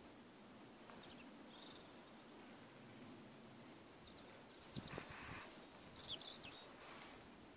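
Quiet open-air ambience with a few short, high bird chirps, most of them between about four and six and a half seconds in, and a couple of soft knocks about five seconds in.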